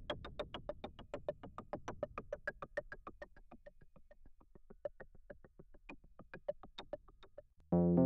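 Dave Smith Prophet-6 analog polyphonic synthesizer playing a fast repeating run of short notes at varying pitches, about seven a second, which grows gradually quieter. Near the end a loud sustained chord starts.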